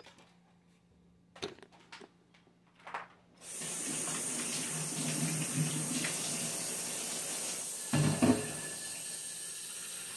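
Kitchen faucet turned on a few seconds in, water running steadily into a stainless-steel sink, with a couple of knocks about eight seconds in. It is shut off at the end.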